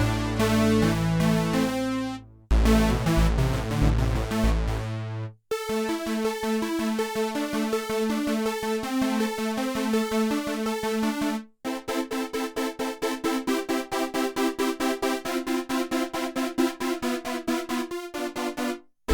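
Kurzweil K2000 synthesizer factory patches played dry, with no effects. The sound breaks off briefly several times: first chords over a low bass line, then a steady rhythmic pattern of short notes, and in the last part fast repeating notes.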